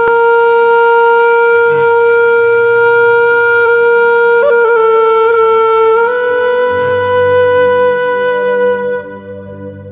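Background music: one long held woodwind note over a low drone. The note wavers briefly about four and a half seconds in, steps slightly higher at six seconds, and stops about nine seconds in.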